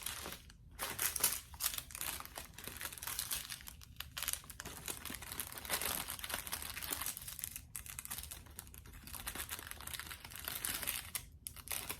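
Small plastic bags of diamond-painting drills crinkling and rustling as they are handled and sorted, with irregular crackles throughout.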